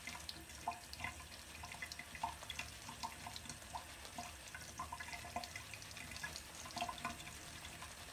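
Shaving brush working soap lather in the palm: many short, irregular wet squelches and small crackles as the bristles churn lather that has just been watered down from a dry paste.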